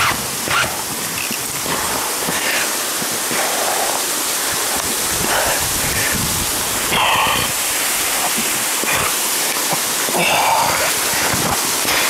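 Steady rush of a waterfall pouring close by, with a few short rustles rising above it twice in the middle of the stretch and again near the end.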